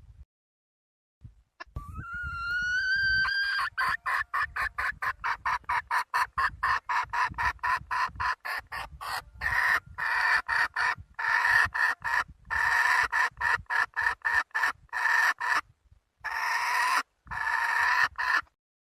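Desi hen calling: one drawn-out call, then a long run of rapid clucks, about four a second, broken by a few short pauses. The calls stop shortly before the end.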